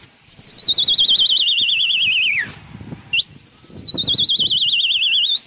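Two long, loud warbling whistles. Each jumps sharply up to a high pitch, then glides slowly down with a fast, even wobble. The second rises again at its end.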